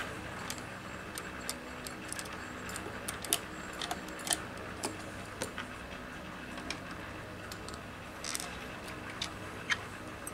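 Scattered light metallic clicks and clinks, irregularly spaced, of small metal parts and tools being handled during work on an industrial sewing machine's thread trimmer, over a faint steady hum.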